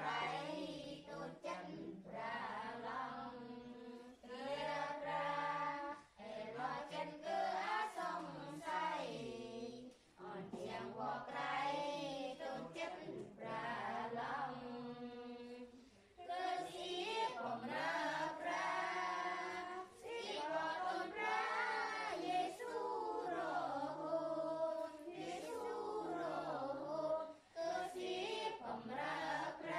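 A group of children and adults singing a hymn together in unison, without instruments, in phrases of a few seconds with short breaths between them.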